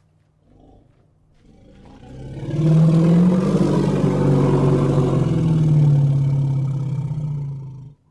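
Elephant giving a long, low, rough bellow: it swells in over about a second, holds for about five seconds, and cuts off abruptly near the end.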